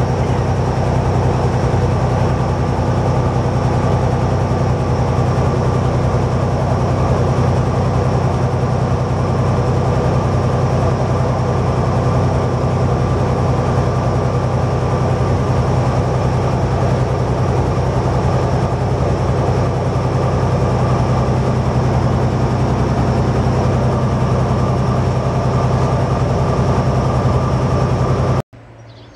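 Cab of the Árpád railbus at speed: its diesel engine runs with a steady low drone over the rumble of wheels on the track. The sound cuts off abruptly near the end, leaving a much quieter background.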